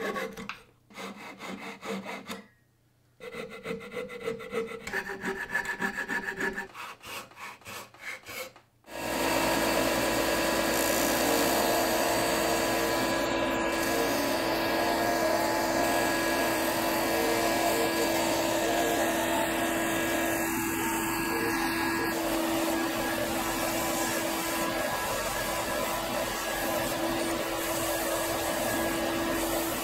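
Coping saw cutting a pine blank in quick strokes, in short runs with pauses. About nine seconds in, an electric belt-and-disc sander starts and runs steadily as the pine blank is pressed against its disc and then its belt.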